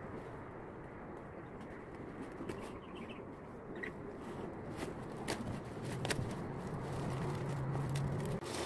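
Large green leaves and plastic curling ribbon rustling and crackling as they are handled and tied, with a few sharp crinkles and the rustle growing louder near the end. A low steady note sounds for about a second and a half near the end.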